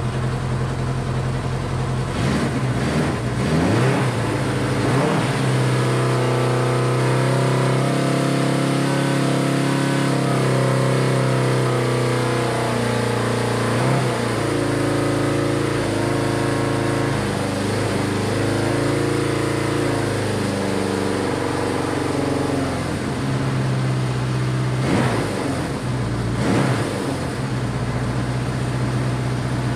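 Honda CB500's air-cooled four-cylinder engine running at a fast idle, revved briefly a couple of seconds in and again near the end. It is being run for a few minutes before a compression test, and it smokes, which the owner takes to point to a stuck or, more likely, broken piston ring.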